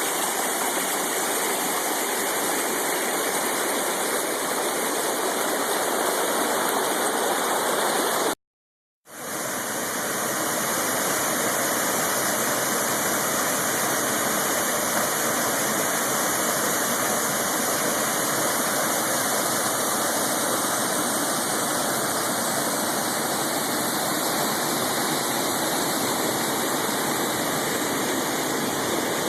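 Steady rushing of a waterfall, with falling water loud and even. It cuts to silence for under a second about eight seconds in, then the steady rush of another waterfall fades quickly back up.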